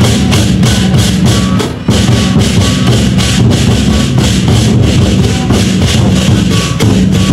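Chinese lion dance drums beaten hard and fast with sticks, together with clashing hand cymbals, in a loud, continuous drum roll that dips briefly about two seconds in.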